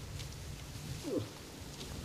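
A single short grunt falling in pitch, about a second in, over a steady low hum: a rutting bull moose grunting as it comes in to the call.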